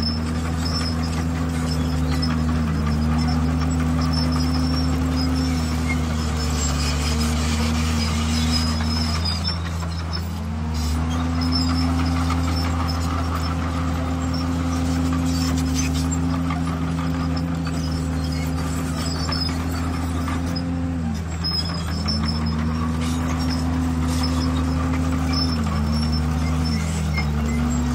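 Diesel engine of a DR51PX crawler bulldozer running steadily under load while spreading stone, its pitch sagging and recovering about four times, with faint high squeaks throughout.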